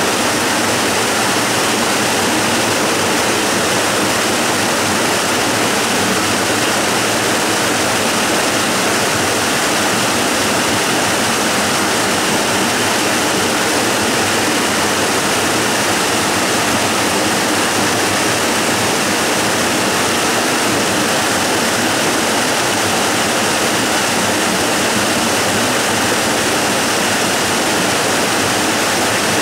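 Waterfall: a steady, unbroken rush of falling water, an even hiss with little deep rumble.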